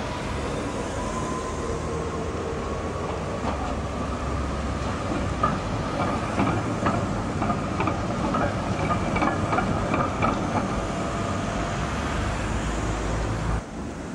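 An HTM articulated tram running past on street track, its wheels clicking and knocking over rail joints and points, loudest from about five to eleven seconds in, over a steady low rumble of traffic.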